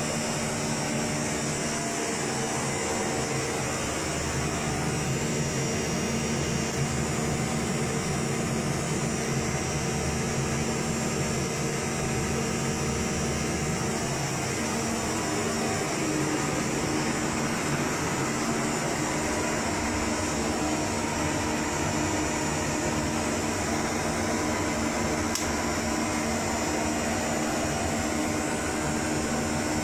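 Steady whirring hum of equipment cooling fans, an even hiss with a low electrical drone underneath that does not change.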